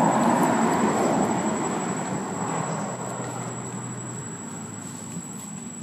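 A passing vehicle's rumble, loudest at the start and fading steadily away, with a thin steady high tone running under it.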